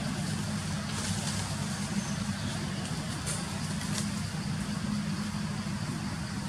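Steady low hum of an engine running, under an even hiss, with a few faint ticks.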